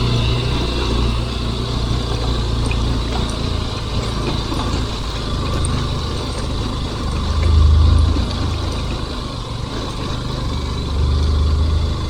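Motorcycle engine running at low speed over a rough off-road trail, a steady low rumble that swells a little past halfway and again near the end.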